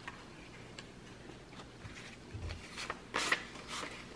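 Paper dollar bills being pulled from a clear acrylic cash holder and counted by hand: faint crisp rustles and flicks of the notes, with a few louder ones about three seconds in.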